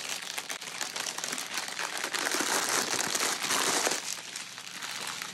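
Clear plastic packaging of a diamond-painting kit's bundled drill bags being handled, crinkling continuously with many small crackles, busiest about halfway through.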